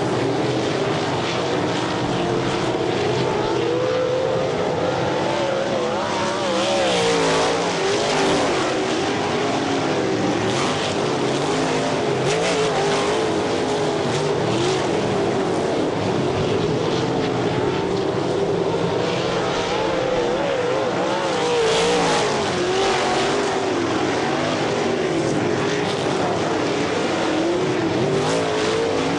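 Several sprint car engines racing on a dirt oval, their notes rising and falling as the cars lift for the turns and accelerate out of them. The sound swells louder as the pack passes, about a quarter of the way in and again about three quarters in.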